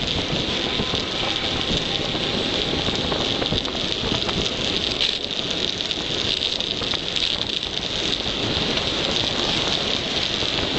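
Wind rushing over the microphone of a mountain bike descending fast on tarmac, with road and tyre noise underneath: a steady, even hiss with no break.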